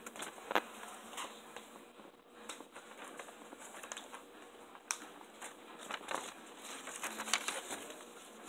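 Sheets of paper being handled and slid on a wooden tabletop: light rustling with irregular soft taps and clicks.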